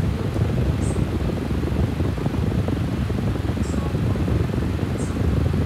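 Steady low rumbling background noise, like a machine running, with a few faint short high ticks.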